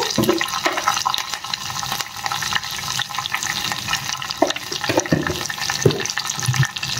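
A tempering of chana dal, urad dal and curry leaves sizzling and crackling steadily in hot sesame oil in a pan.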